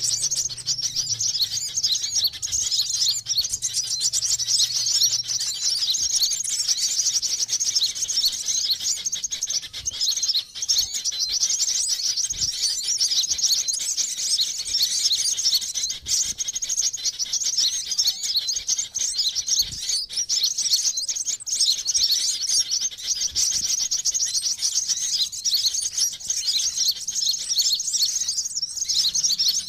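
Sunbirds chirping and twittering in a dense, unbroken stream of rapid high, thin notes, played as a lure call (suara pikat) for sunbirds.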